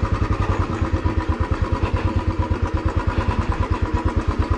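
Royal Enfield Classic 350's single-cylinder engine running steadily at low revs, a rapid, even thump of about a dozen beats a second.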